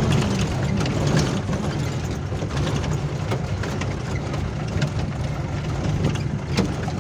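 Vehicle engine running steadily with a low drone, overlaid by frequent short rattles and knocks.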